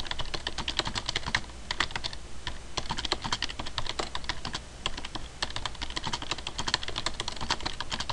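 Typing on a computer keyboard: rapid runs of key clicks as a sentence is typed, with a couple of brief pauses.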